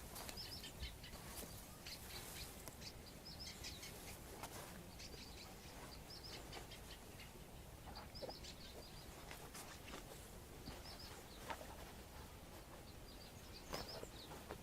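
Small songbirds chirping faintly in short, repeated bursts of high notes every second or two, over a low steady outdoor background with a few faint clicks.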